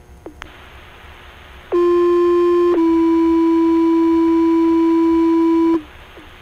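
Fire-dispatch two-tone sequential page tones heard over a Baofeng UV-5R scanner: a steady tone for about a second, then a slightly lower tone held for about three seconds that cuts off suddenly, over radio hiss with a faint click before and after. These are the alert tones that set off the firefighters' pagers ahead of a voice page.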